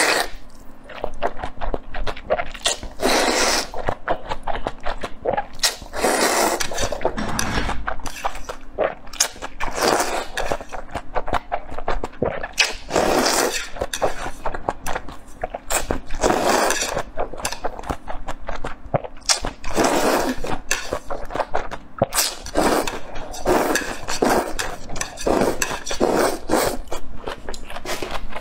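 Close-miked eating: stir-fried noodles slurped up in repeated wet sucks, with chewing and mouth clicks between them.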